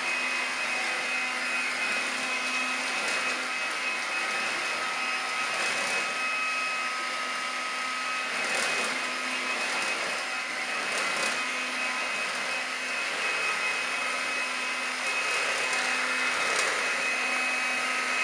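Stick vacuum cleaner running steadily, its motor whine holding one pitch over a constant rush of air as it is pushed across a hardwood floor.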